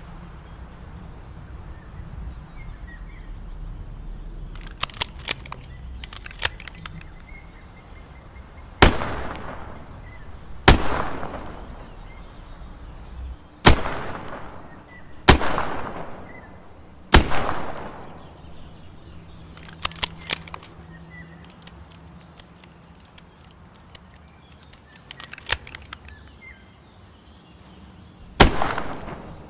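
Smith & Wesson 360J revolver firing: five sharp shots a second or two apart, each ringing out for about a second, then a single shot near the end. In the quieter stretches before and after the string there are clusters of quick small clicks.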